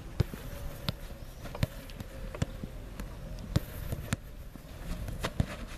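Footballs being kicked and passed between players on artificial turf: about seven sharp thuds of boot on ball, roughly one every second or less.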